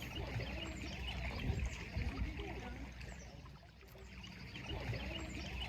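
Palm oil heating in a pan over a gas camp stove: a low steady rumble with faint, scattered crackles, dipping briefly in the middle.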